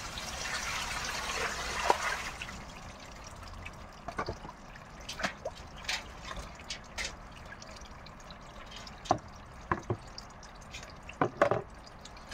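Water poured from a plastic dipper into a basin for the first two seconds or so, then a pet crow bathing in a shallow metal basin of water: scattered splashes and drips as it dips and flaps its wings.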